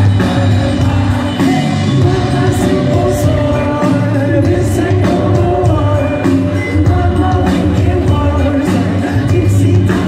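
Live band playing a song amplified through a concert hall's PA, with a sung lead vocal over guitar, keyboards and drums and a steady bass line. Heard from within the audience, with the hall's echo.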